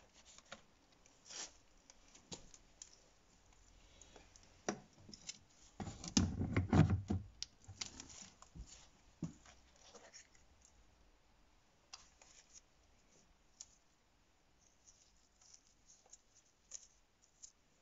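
Handling noise of a window-lifter motor's hard plastic housing against the door: scattered clicks, scrapes and light knocks. A cluster of louder bumps comes about six to seven seconds in, then only occasional ticks.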